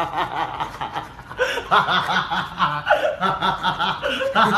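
Men laughing and chuckling in quick, choppy pulses, with several voices overlapping from about a second and a half in.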